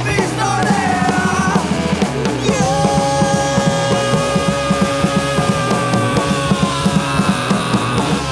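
Instrumental rock band passage: fast, busy drums and bass under a long held note that comes in about a third of the way through and slowly sinks in pitch.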